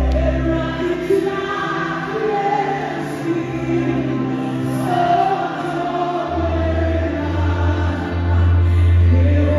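Live gospel worship song: a woman's lead voice on microphone with backing singers, over keyboard. The deep bass drops away about a second in and comes back strongly about two-thirds of the way through.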